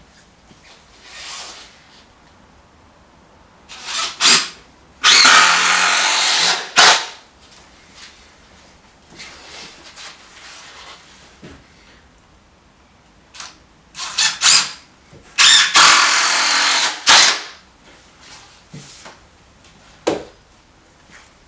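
Cordless drill driving fasteners into the timber of a picnic table, heard twice. Each time a couple of short trigger blips come first, then the drill runs steadily for about two seconds and stops sharply.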